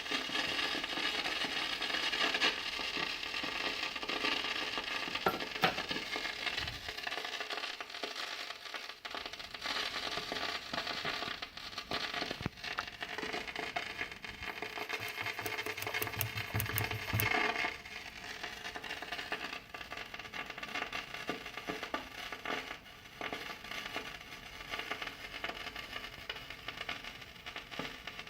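Kenwood GE-52B graphic equalizer putting static and crackling with scattered pops through the speakers, louder at first and dropping down about two-thirds of the way through. It is an intermittent fault that fades in and out on its own and is not changed by wiggling the connections.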